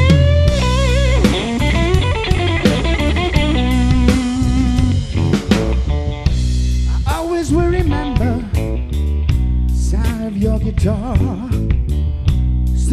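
Live blues band: an electric guitar plays a lead with string bends and vibrato over electric bass and a drum kit.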